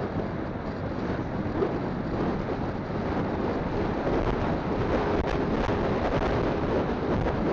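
Wind rushing over a phone's microphone on a moving motorcycle, mixed with the bike's engine and tyre noise, steady with a slight rise in loudness about halfway through.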